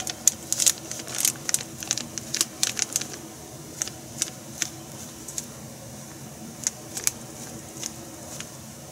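Plastic bag of tempura flour crinkling as the flour is shaken out of it into a bowl: dense crackling for the first three seconds or so, then only scattered crinkles.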